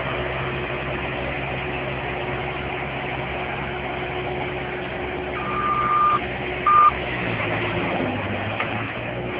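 A Bobcat machine's engine running steadily, with a backup alarm beeping twice a little past the middle: one longer beep, then one short one. The engine note shifts near the end.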